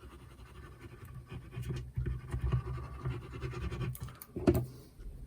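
Paper and cardstock being handled on a craft table: irregular scratching and rubbing with small ticks, and one sharper knock about four and a half seconds in.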